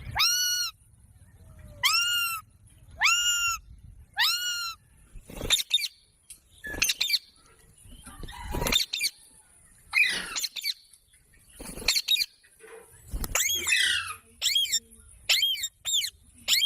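Parrot calling: four matching arched calls about a second and a quarter apart, then a run of shorter, varied squawks and chirps.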